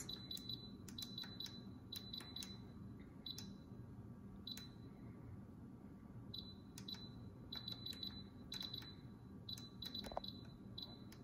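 Instant Pot Ultra control dial beeping as it is turned to set the cooking time. Each dial step gives a short, high, faint beep with a click, and the beeps come in irregular bursts and single steps.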